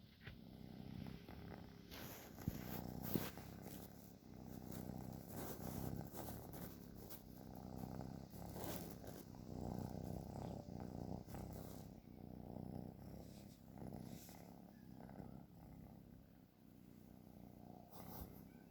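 Domestic cat snoring, a low grainy rumble that swells and fades with each breath, about every two seconds. There are two small sharp clicks about three seconds in.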